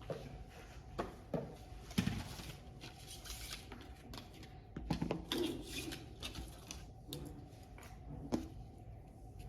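Small plastic clicks, taps and scratching as a tool pries open a computer mouse's click microswitch.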